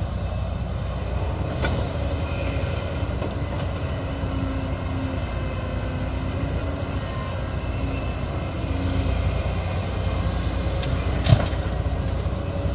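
Kobelco SK200-10 hydraulic excavator's diesel engine running under load as the machine digs and swings, a steady low rumble with a faint wavering hum for a few seconds. A single sharp knock comes about eleven seconds in.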